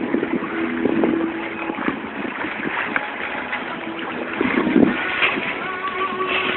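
Wind and water rushing past a sailing yacht under way, a steady noisy wash with no engine running.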